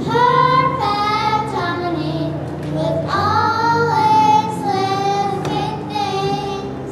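Young girls singing a song into microphones, with held, sliding notes, over a steady keyboard accompaniment.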